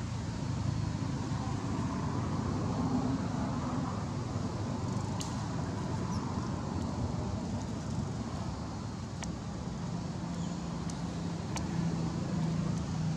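Steady low background rumble with a few faint clicks, and a low hum coming in near the end.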